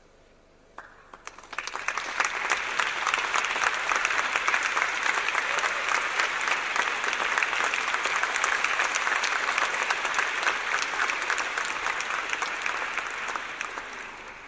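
Audience applauding. The clapping starts about a second in, builds quickly, holds steady, then dies away near the end.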